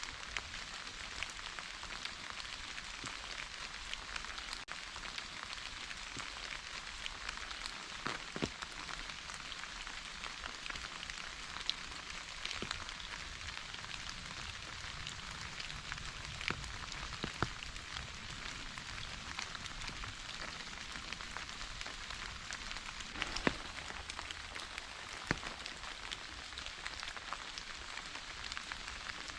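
Steady rain falling, an even hiss with many separate drops ticking on a surface.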